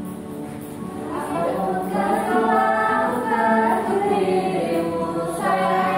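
Music with a group of voices singing held notes together, getting louder about a second in.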